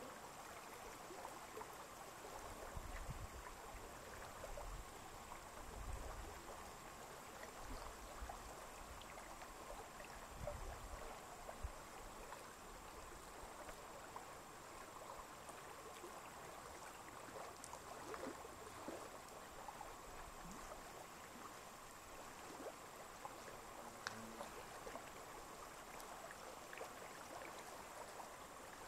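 Faint lakeside ambience of gently moving water, with fine scattered ticks and a few low rumbles in the first dozen seconds.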